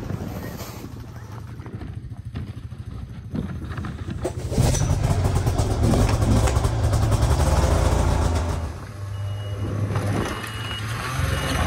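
Snowmobile engine running, clearly louder from about four and a half seconds in as the machine is driven back out of an enclosed trailer. Near the end, short reverse-warning beeps sound about once a second over the engine.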